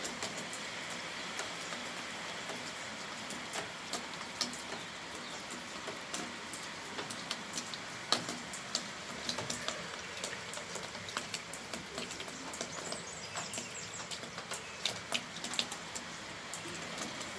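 Rain falling: a steady hiss with irregular sharp drips and taps of drops landing close by, one louder drip about eight seconds in.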